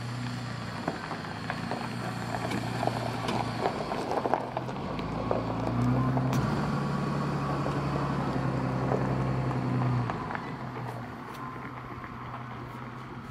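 Jeep Liberty SUV crawling over a gravel and rock trail: engine running at low revs while tyres crunch and pop over stones. It grows louder about five seconds in, then drops off after about ten seconds.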